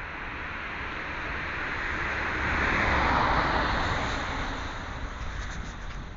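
A vehicle passing by: a rushing noise that swells to a peak about three seconds in, then fades away.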